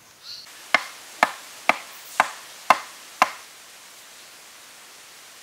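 Six sharp knocks on wood, evenly spaced about two a second, each with a short ring.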